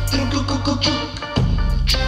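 Live band music: electric guitars and keyboard over a deep, sustained bass line.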